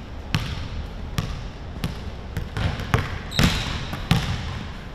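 Basketball being dribbled on a hardwood gym floor: about eight thudding bounces at an uneven pace, roughly one every half second to a second, with the hall's echo.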